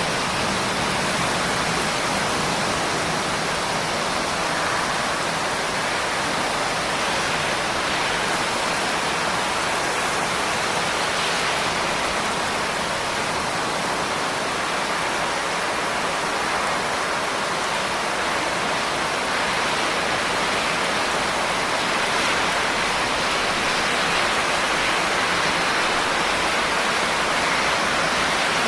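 Steady rain falling, an even continuous hiss with no distinct drops standing out.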